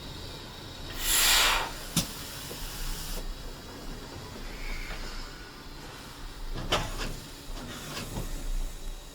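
GWR pannier tank steam locomotive no. 6412: a short, loud blast of escaping steam about a second in, then a few sharp metallic clanks, over a low steady rumble.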